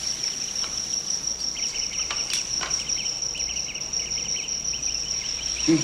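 Insects trilling: one steady high unbroken trill, joined about a second and a half in by a lower chorus of rapid chirps. A short soft thump near the end.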